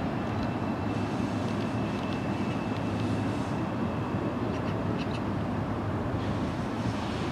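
10-car Line 4 electric commuter train approaching on curved track at a distance: a steady low rumble, with a thin high whine for the first few seconds and a few light clicks later on.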